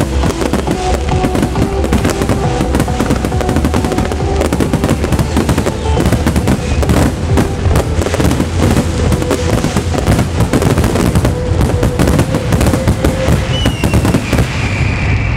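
Dense fireworks barrage, shells bursting many times a second with crackle, over trance music from the show's loudspeakers. The bangs thin out near the end.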